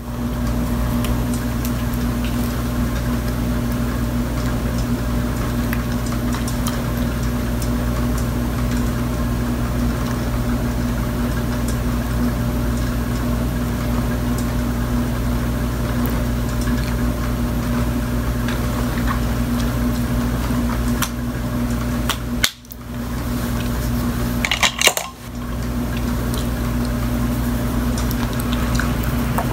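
A steady machine hum and hiss with a constant low drone, the sound of a running appliance such as a fan. It cuts out briefly twice near the end, with a sharp click just before the second gap.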